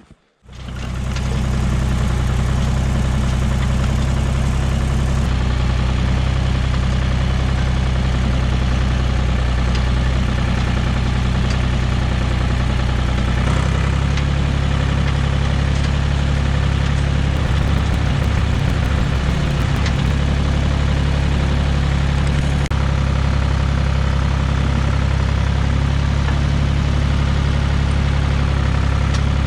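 Tractor engine running steadily at a constant speed, with a deep, even tone that cuts in suddenly just after the start.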